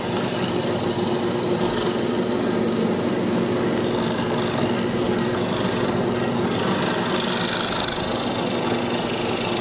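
Drill press motor running steadily with a hum while its hollow mortising chisel and inner auger bore down into a hardwood workpiece, cutting a square mortise.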